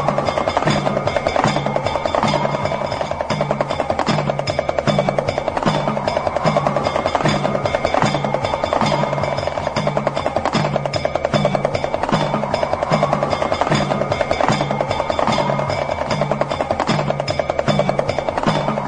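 Damru, the small two-headed hourglass drum, rattled in a fast, continuous roll, over a low note pulsing about twice a second and a slow rising-and-falling tone that repeats every few seconds.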